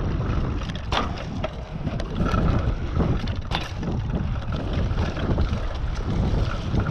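Wind rumbling over an action camera's microphone as a mountain bike rolls over dirt jumps, with tyre noise on the dirt. Sharp knocks and clatter from the bike come about one, two, three and three and a half seconds in as it lands the jumps; the landings are a little rough.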